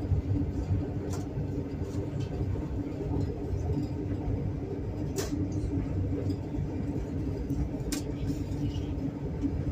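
Passenger train running, a steady rumble inside the compartment carriage with a held hum, and a couple of sharp clicks.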